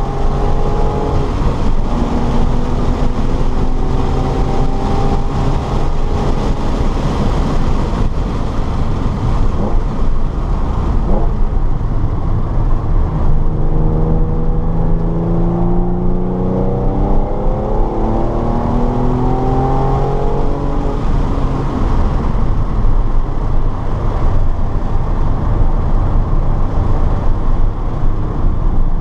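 Car engine under hard acceleration during track lapping, its pitch climbing through the revs and dropping back at shifts, several times in a row about halfway through. A heavy rumble of road and wind noise runs underneath.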